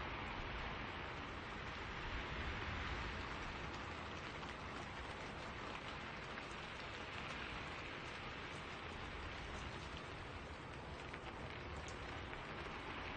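Steady rain falling in a forest, with wind in the spruce trees and scattered individual drops ticking through the hiss.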